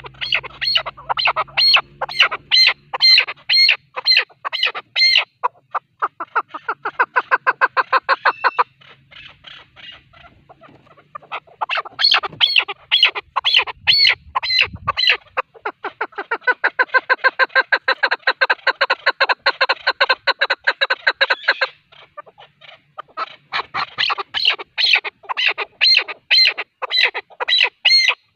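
Male chukar partridge calling: long runs of rapid, repeated clucking notes, broken by two short pauses.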